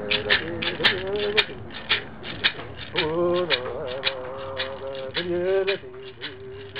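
A man chanting in long, wavering held notes over a steady rhythmic rattle, about four shakes a second.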